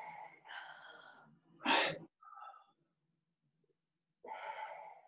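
A man breathing out hard in effort during a shoulder stretch on a mobility ball. There is a long breathy exhale, then a short sharper and louder one about two seconds in, and another exhale near the end.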